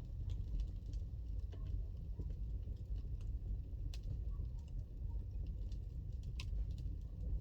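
Wood fire in a fireplace crackling: irregular sharp pops and snaps over a steady low rumble, with a louder pop about six seconds in.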